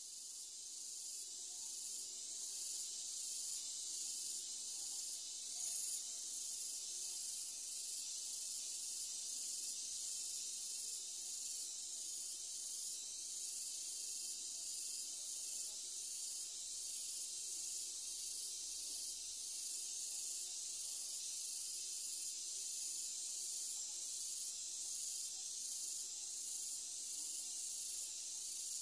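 High-pitched insect chorus outdoors: a steady shrill hiss that pulses evenly, a little more than once a second.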